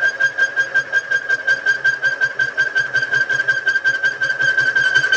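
Milling-machine cutter roughing out a tube hole in a duplex stainless steel boiler tube plate, squealing at one steady high pitch that pulses rapidly, about eight times a second.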